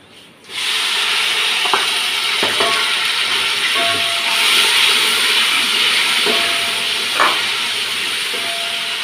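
Chopped tomatoes sizzling in hot oil and fried onions in an aluminium pot: a loud steady hiss that starts suddenly about half a second in as they hit the oil. A wooden spoon knocks and scrapes against the pot several times while stirring.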